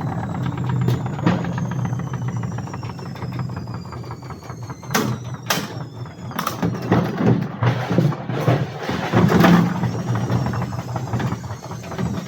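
Hotpoint FMG723 washing machine running hard, with a low hum and a high whine that falls slowly in pitch over the first few seconds, as the drum slows. From about halfway through come a series of loud knocks and bangs.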